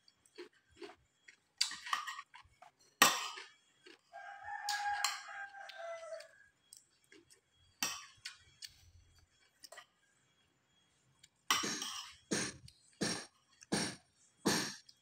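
Spoon and fork clinking and scraping on a ceramic plate while eating, in scattered strokes with a quick run of about two a second near the end. About four seconds in, a drawn-out call sounds in the background for about two seconds, dropping in pitch at the end.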